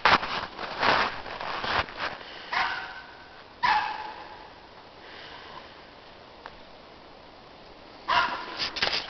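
Lhasa Apso sniffing in quick bursts, with two short barks a few seconds in, then a few quieter seconds before the sniffing starts again near the end.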